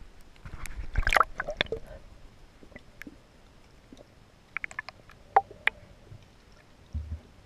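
Water splashing and sloshing as a camera is dipped through the surface beside a boat hull, then muffled underwater sound with a cluster of sharp clicks a few seconds in and a low thump near the end.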